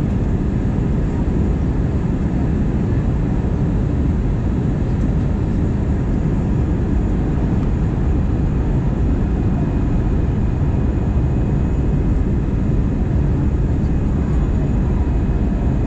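Steady cabin noise inside an Airbus A320 airliner on descent: the jet engines and the rush of air past the fuselage make a deep, even rumble, with faint steady high tones above it.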